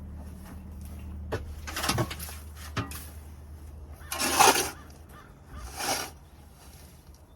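Old wood shavings and chicken manure being scraped and scooped up off a coop floor: three rough scraping sweeps, the loudest about four seconds in, with a couple of sharp knocks of the tool against the floor or boards.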